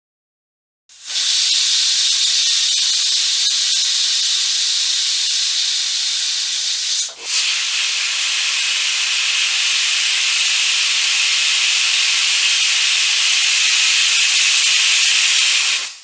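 Indian pressure cooker whistle venting steam in a loud, steady hiss. It comes in two long blasts, the first starting about a second in and the second following a brief break around the middle. The steam pressure inside has built up enough to lift the whistle weight.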